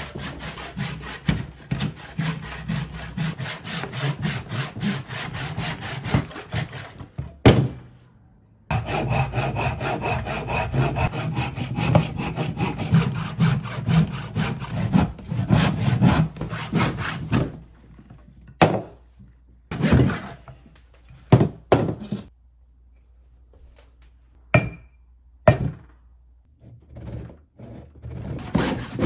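Handsaw cutting through a wooden block in rapid back-and-forth strokes, with a brief break about eight seconds in. In the later part, sawing gives way to a few short isolated sounds between quieter stretches. Steady sawing picks up again near the end.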